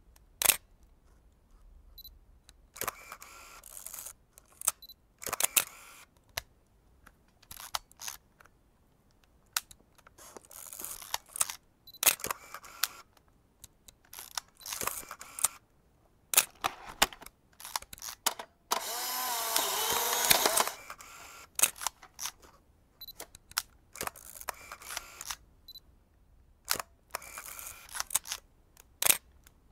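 Vintage film cameras being operated: a string of sharp mechanical shutter clicks, several followed by about a second of rattly winding. About two-thirds through there is a denser two-second whir with a wavering pitch.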